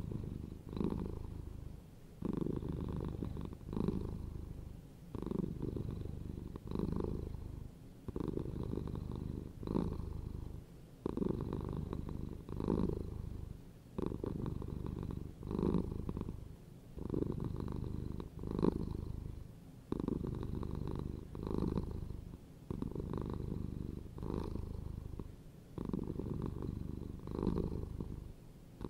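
Domestic cat purring steadily, the low rumble swelling and easing in even waves about once every one and a half seconds with each breath.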